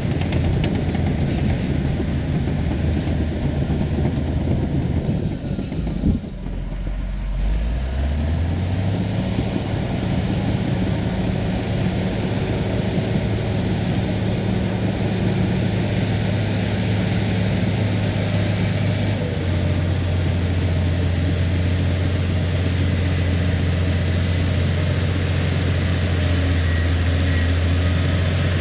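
Engine of an earthmoving machine pushing topsoil, running steadily. About six seconds in the engine note dips, then climbs back up over a couple of seconds. Its note changes again about two-thirds through.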